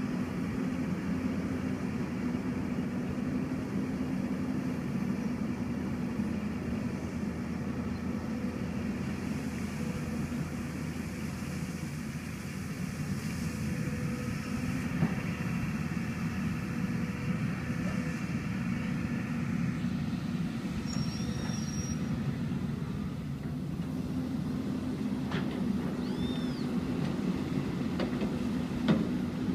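Hyundai excavator's diesel engine running steadily, a continuous low drone, with a single sharp knock near the end.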